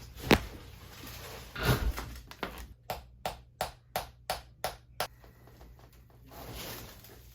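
Chiropractic adjustment sounds: a single sharp crack near the start, then a run of about eight evenly spaced taps from a chiropractic adjusting hammer, roughly three a second.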